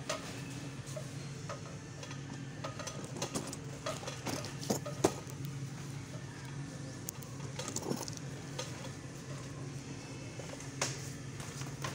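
Shop ambience: a steady low hum with scattered light clicks and knocks, as of packaging being handled, and one sharper knock about five seconds in.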